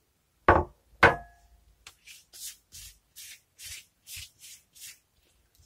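Two sharp knocks about half a second apart, the second with a brief glassy ring, as the glass bowl of sauce is set down on the counter; then a silicone pastry brush swishing sauce across a sheet of yufka in quick strokes, about eight, two to three a second.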